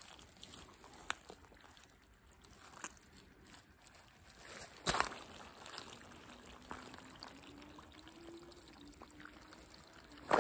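Leather boots stepping in soft wet mud: a few scattered wet squelching steps, the loudest about five seconds in. A faint low hum comes in during the second half and rises slightly in pitch.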